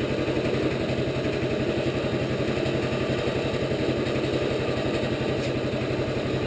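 Portable band sawmill's engine idling steadily, with an even rapid pulse.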